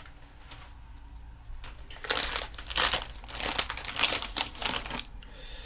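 A small plastic snack packet crinkling as it is handled, quiet at first and then a run of irregular crackles for about three seconds.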